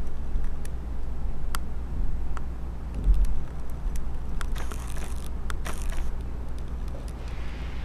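Steady low rumble with scattered small clicks and a brief hiss, the handling noise of a handheld compact camera's built-in microphone.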